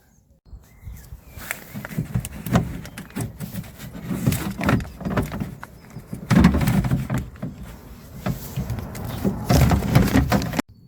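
Irregular clicks, knocks and rattles of hands working metal and plastic parts inside a car door, with handling rustle between them; the sound cuts off abruptly near the end.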